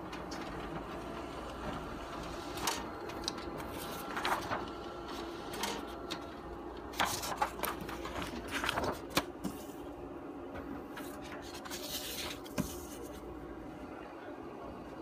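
Toshiba e-Studio 2000AC colour copier running with a steady hum and a thin whine that stops about six seconds in. Short paper rustles and clicks come and go as the printed sheets are handled.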